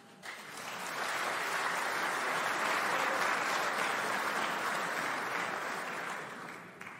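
A large seated audience applauding. The clapping builds over the first second, holds steady, then dies away near the end.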